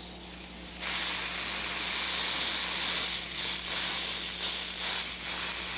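Aerosol can of ORS Olive Oil Super Hold Wig Grip spray hissing in one long continuous spray. It starts faintly and comes on full about a second in.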